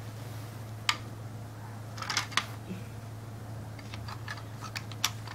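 Plastic Duplo bricks clicking and knocking as a toddler handles and pulls at them: a few sharp clicks, a quick cluster about two seconds in and several more near the end.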